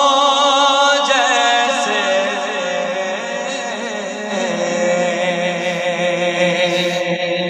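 A man singing an Urdu naat into a microphone, drawing out a long note that wavers in pitch for about the first second, then holding steadier, lower notes.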